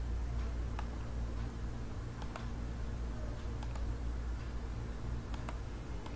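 Computer mouse clicking four times, mostly as quick double clicks, over a steady low hum.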